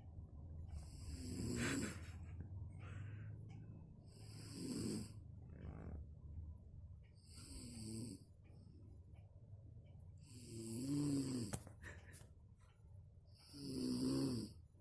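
A sleeping woman snoring very loudly, five snores about three seconds apart, with quieter breathing between them; the snoring is put down to exhaustion.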